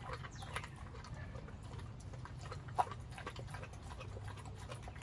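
Pit bull chewing and licking a whole raw chicken: irregular wet smacks and clicks, with one sharper click about halfway through, over a steady low hum.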